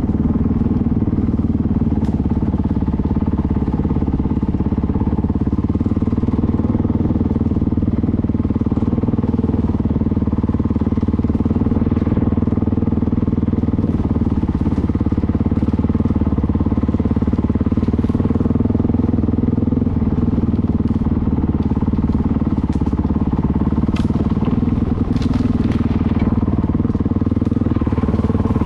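Honda CRF 450L's single-cylinder four-stroke engine running at steady revs while riding a dirt track. A few sharp clicks come near the end.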